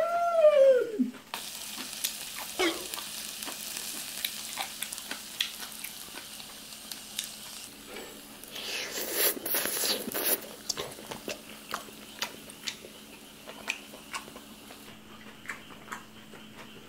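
Beef intestines sizzling on an electric tabletop grill plate, a steady hiss with sharp pops and clicks of chopsticks on the plate. A woman's drawn-out "mmm" of enjoyment is heard at the start, and there is a louder rush of noise for about two seconds near the middle.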